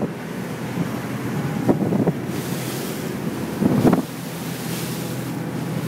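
A boat under way in rough water: its engine hums steadily under wind on the microphone and water rushing past the hull, with two heavy thuds and rushes of spray as the hull slams into waves, about two seconds in and again about four seconds in.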